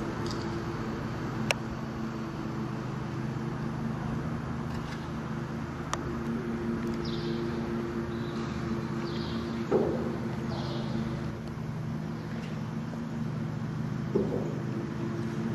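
Steady low mechanical hum. Two sharp clicks come in the first six seconds, faint high squeaks follow in the middle, and two dull thumps fall near the middle and near the end.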